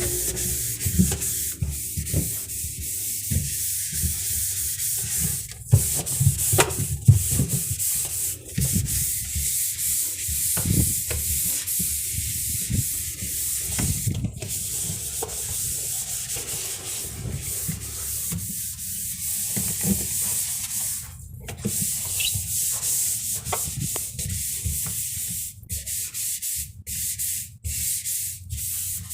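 Steady scrubbing and rubbing of a cleaning sponge or cloth over a surface, with scattered clicks and knocks.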